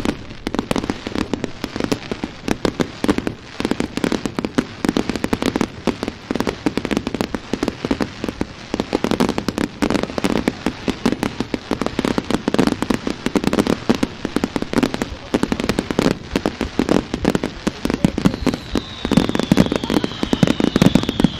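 Aerial fireworks display: a dense, continuous barrage of bangs and crackling from bursting shells, many reports a second. Near the end a high whistle comes in, slowly falling in pitch.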